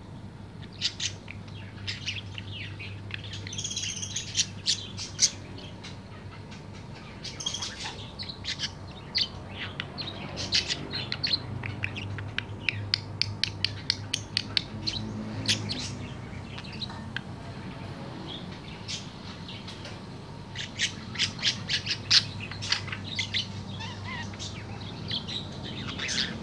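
Budgerigar chattering and warbling in runs of quick, short high chirps, in about three spells with pauses between, over a steady low hum.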